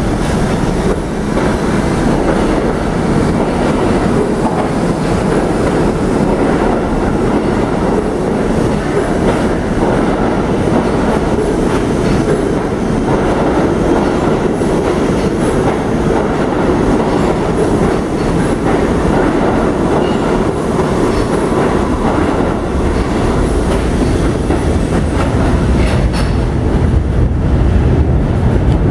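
R68 subway train pulling out of an underground station, its steel wheels running along the rails with a loud, steady rumbling noise. The deep low rumble grows stronger near the end as the last car enters the tunnel.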